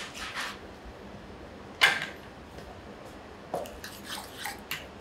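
A wooden pepper mill grinding briefly, then one sharp knock about two seconds in, followed by a spoon clinking and scraping against a small stainless-steel bowl as a mashed egg and béchamel filling is stirred.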